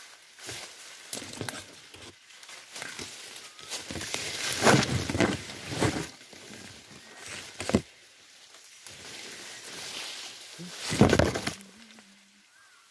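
Leaves and branches rustling and brushing close to the microphone in irregular bursts, loudest about five and eleven seconds in, as someone pushes through dense bushes.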